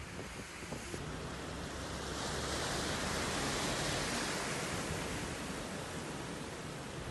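Vehicles driving through deep floodwater, their tyres throwing up a rushing hiss of water. It swells about two seconds in, is loudest as a van passes close by, then eases off.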